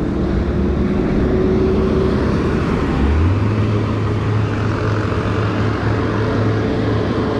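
Steady rush of wind and road noise from a moving camera on a city street, under a low motor-vehicle engine hum that steps up in pitch about three seconds in.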